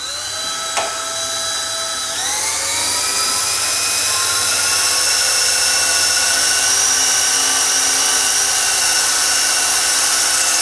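Cordless drill boring a shallow pocket into the hard steel of an AR-15 barrel, through the gas block's set-screw hole. The motor starts at low speed, winds up to a higher speed about two seconds in, then runs steadily under heavy feed pressure.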